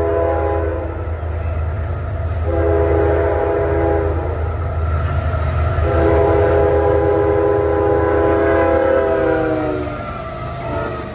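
Diesel locomotive's multi-chime air horn sounding a chord: the end of one blast, a shorter blast about two and a half seconds in, then a long blast of about four seconds whose pitch sags near its end as the train passes. A steady low rumble of the locomotive and train runs underneath.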